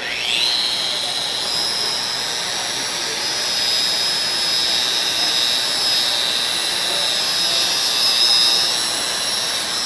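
FEIN BF 10-280E electric belt file spinning up with a quickly rising whine, then running steadily at full speed. Its narrow abrasive belt grinds down a weld seam on stainless steel tubing, a high whine over a steady grinding hiss.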